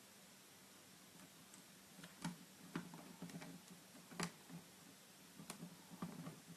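Scattered small, sharp clicks of a mini screwdriver and tiny screws being fitted into the metal frame of a laptop LCD screen, a few irregular ticks over a faint hiss.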